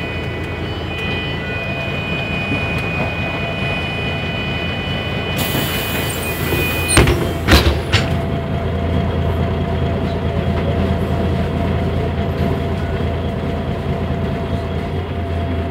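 Mercedes-Benz O345 Conecto city bus heard from inside the cabin while driving: a steady diesel engine drone with cabin rattle. A thin high whine runs through the first half, and two sharp knocks come a little after halfway.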